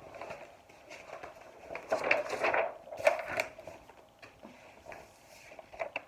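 Quiet rustling of a picture book being handled, with two louder rustles about two and three seconds in.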